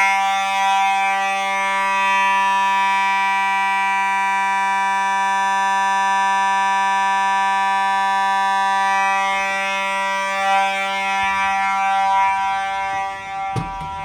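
Fire alarm devices sounding one continuous, steady, unpulsed alarm tone with many overtones. About a second before the end a click is heard and the lowest part of the tone drops away.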